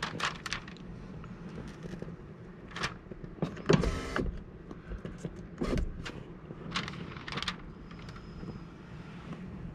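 Old window tint film being peeled off a car's glass: irregular crackles and scrapes, the loudest a short rasping scrape about four seconds in, over a steady low hum.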